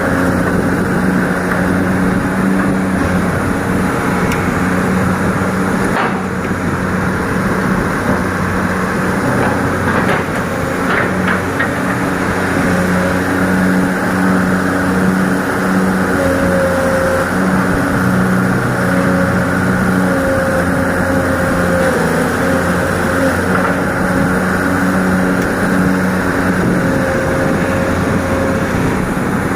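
Excavator's diesel engine running steadily as it digs, with a few short knocks and clanks along the way.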